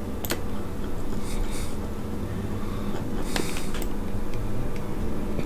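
Steady low hum of room and computer noise, with two sharp mouse clicks, one just after the start and one about three and a half seconds in, and two short soft hisses.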